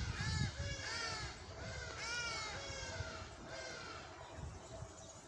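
Several birds calling at once, overlapping arched calls repeating about twice a second, with low thuds underneath, loudest near the start.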